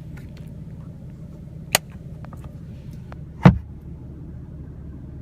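Steady low hum of the BMW M3's engine idling, heard inside the cabin, with a sharp click a little under two seconds in and a louder thump about three and a half seconds in.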